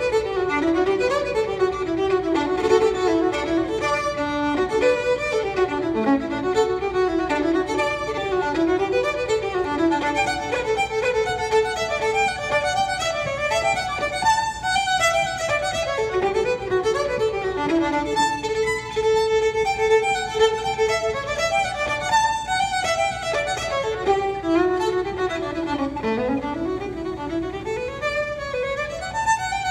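Unaccompanied fiddle playing a lively Irish traditional tune in quick runs of bowed notes.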